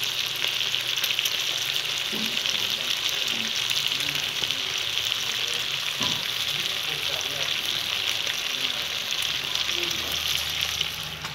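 Pork pieces cooking in a pan with sliced shallots: a steady sizzle of hot fat and liquid, flecked with small crackles.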